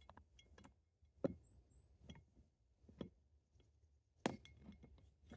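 A few sharp plastic clicks and knocks from the Starlink dish's adapter and mast being handled and pushed into the dish, spaced about a second apart, with near silence between them.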